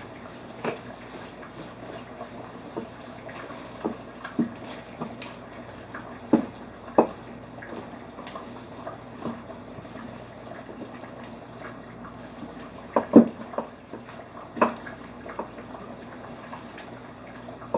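Long wooden stick stirring and mashing thick asida dough in a steel pot: wet, sticky churning with occasional sharp knocks of the wood against the pot, the loudest about two-thirds of the way through, over a steady low hum.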